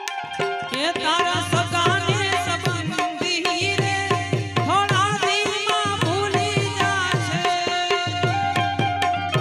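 Indian devotional music: tabla keeping a steady rhythm, its bass drum bending in pitch, under a melody full of sliding notes.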